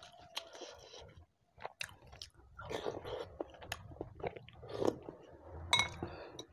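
Close-miked chewing of soup vegetables from sayur asem, with wet mouth noises and small irregular crunches, and a spoon clinking against the bowl near the end.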